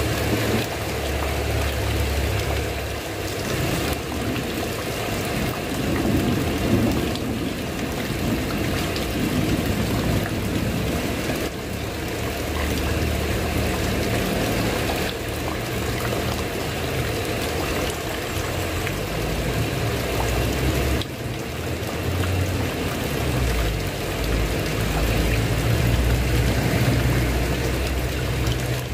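Steady heavy rain falling on a tiled roof, with a low rumble that swells and fades several times.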